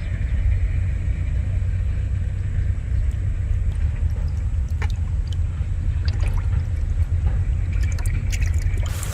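A steady low rumble with a few faint, scattered water splashes.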